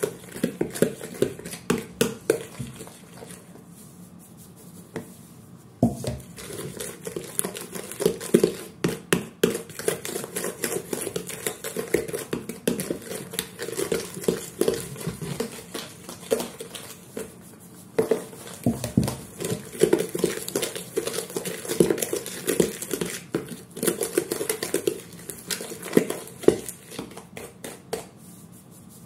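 A fork scraping and clinking against a large mixing bowl as softened butter and sugar are mashed and creamed together by hand. The strokes come in quick, irregular runs, with short pauses a few seconds in and again about halfway through.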